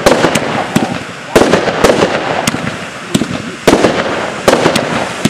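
Fireworks display going off: a run of about seven sharp bangs, roughly one a second, with a dense crackling hiss between them.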